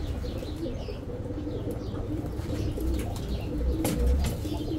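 Several domestic pigeons cooing in low, repeated phrases, with a few sharp clicks in the second half.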